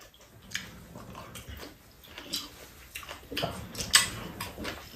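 Close-up eating sounds: chewing and mouth noises with scattered light clicks of chopsticks against bowls, and one sharper click about four seconds in.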